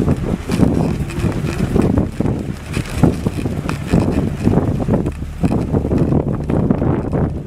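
Wind buffeting the microphone on a moving dog sled, over the low, uneven rumble of the sled travelling along a packed snow trail behind a running husky team.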